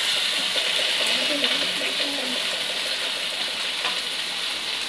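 Oodan fish shallow-frying in oil in a kadai: a steady crackling sizzle.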